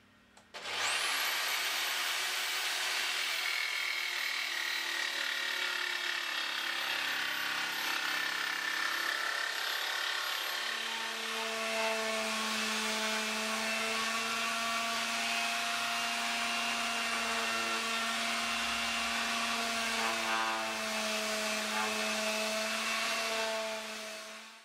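An electric woodworking power tool starts up with a quickly rising high whine, then runs steadily while cutting a wooden panel. About halfway through, a steady hum joins in. It winds down and stops near the end.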